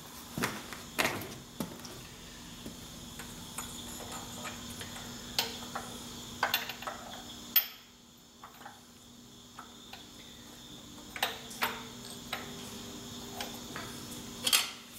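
Scattered light metal clinks and taps as parts and tools are handled inside a John Deere 4430 transmission case while the pump pipes and their O-rings are fitted. A steady faint hum with a thin high tone runs underneath.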